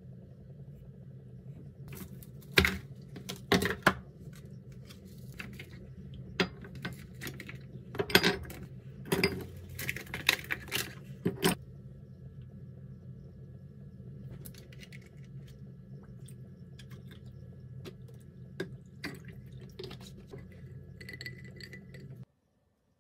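Ice cubes and a glass mug clinking and knocking on a stone countertop: a run of sharp clinks in the first half, then lighter handling noises. A low steady hum runs underneath.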